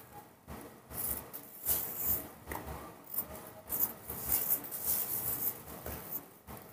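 Knife slicing a crisp pear into small pieces held in the hand: a run of irregular, short crisp cutting and scraping sounds.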